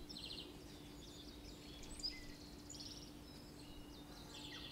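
Faint birdsong: small birds chirping and trilling in short, scattered phrases, over a faint steady hum.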